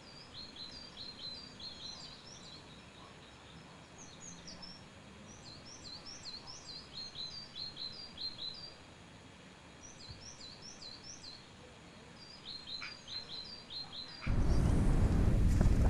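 Small songbirds chirping repeatedly: runs of short, high, quickly falling notes. Near the end, wind suddenly buffets the microphone with a loud rumbling rush.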